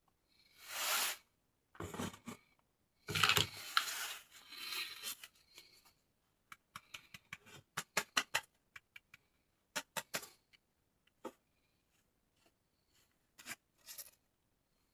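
Toy packaging being unboxed by hand: a few rustling, tearing strokes in the first five seconds, then a run of short, sharp clicks and taps as the pieces are handled.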